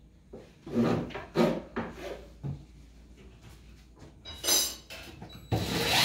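Wooden cabinet door and its hardware being handled: a few short knocks and rubs of wood, then a louder scraping squeak with a falling pitch near the end.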